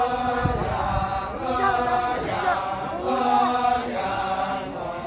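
Kecak chorus of many male voices chanting together in held tones that waver and bend in pitch.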